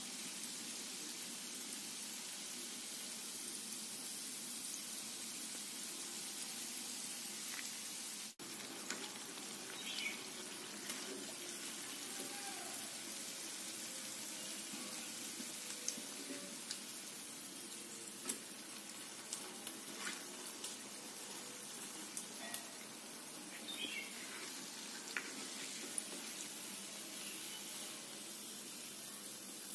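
Bread gulab jamun balls deep-frying in oil in an iron kadai: a steady sizzle, with light clicks of a slotted metal spoon against the pan in the second half.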